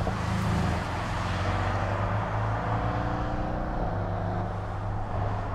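Porsche 718 Boxster GTS's turbocharged flat-four engine pulling under acceleration, its pitch climbing for a couple of seconds and then dropping sharply about two-thirds of the way through as it shifts up a gear.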